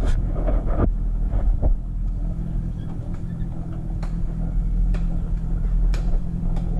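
Small outboard motor running slowly and steadily at low revs, a low hum, with a few sharp knocks about a second apart.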